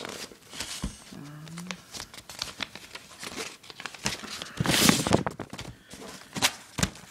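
Yellow padded paper mailer being handled and torn open: irregular paper crinkling and crackling, with a louder rip about five seconds in.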